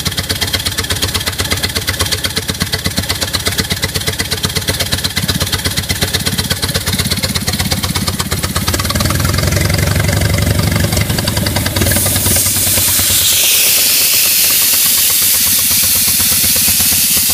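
Engine-driven Gordon-Smith Model A air compressor running with a steady rhythmic chug. About twelve seconds in, a loud hiss of escaping air starts and carries on while the deep engine sound drops away.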